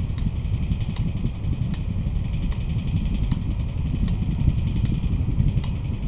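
Electric fan running steadily, its airflow rumbling low and buffeting the microphone, with faint ticks repeating a little more than once a second.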